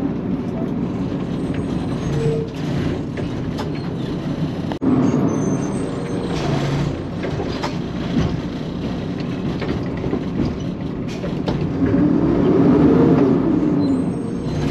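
Garbage truck's diesel engine running as it rolls up to a trash cart, with a sharp clunk about five seconds in. Near the end a whine rises and falls as the truck's hydraulics drive the Curotto-Can arm to grab and lift the cart.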